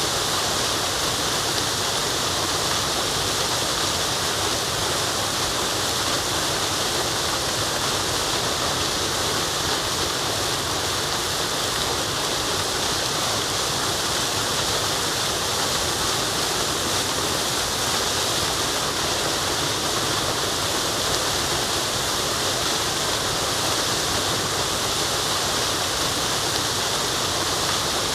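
Forest waterfall: falling water rushing steadily, an even hiss with no breaks.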